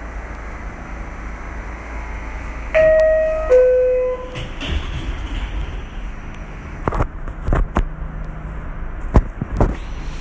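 Two-tone descending door chime of an R46 subway car, a higher note then a lower one, ringing briefly over the car's steady low hum. Several sharp knocks and thuds follow in the last few seconds.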